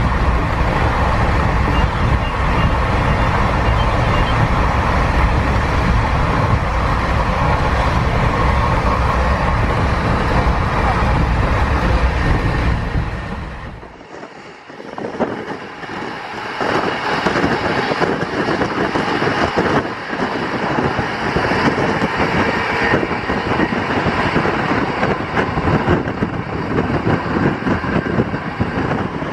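Passenger train running at speed, heard from on board: a loud, steady rumble of wheels on rails and rushing air. About fourteen seconds in it briefly drops away, then comes back brighter and more clattery.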